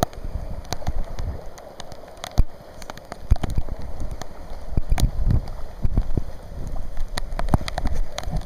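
Heavy rain with floodwater runoff rushing and gurgling. Many sharp drops strike close by, over irregular low rumbling swells.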